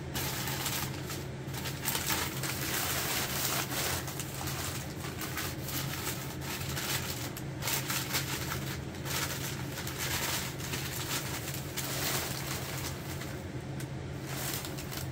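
Crumpled newspaper packing paper rustling and crinkling in irregular handfuls as glassware is unwrapped from it, over a steady low hum.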